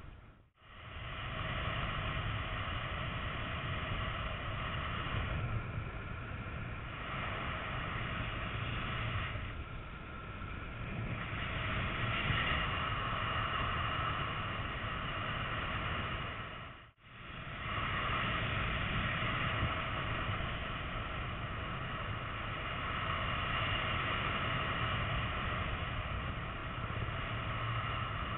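Wind rushing over an action camera's microphone in paraglider flight: a steady low rumble with a thin whistling layered on top, the whistle swelling and fading with the airspeed. It drops out briefly near the start and again about halfway through.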